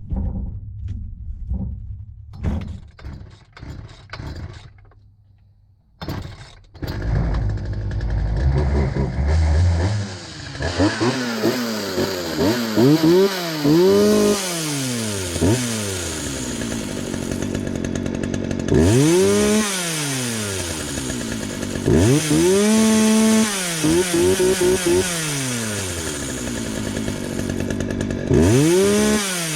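Craftsman 36cc two-stroke chainsaw being test-run after new fuel lines and a primer bulb were fitted. A few knocks and rattles come first. The engine catches about six seconds in and idles, then is revved up and let back down several times.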